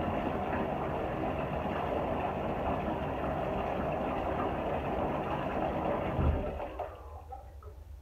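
Bathtub spout running hard into the tub while a dark garment is rinsed and wrung under the stream. Near the end comes a low thump, then the water is shut off and the rushing stops abruptly.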